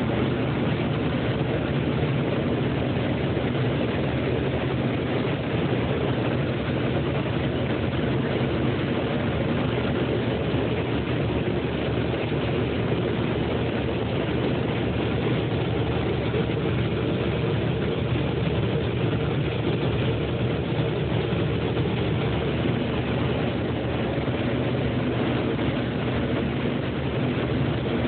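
Case IH 2588 combine running steadily while harvesting corn: a constant diesel engine sound with the drone of the threshing machinery, holding the same pitch and loudness throughout.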